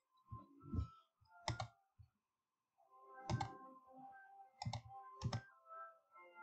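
Computer mouse clicking several times, sharp single clicks spaced a second or so apart.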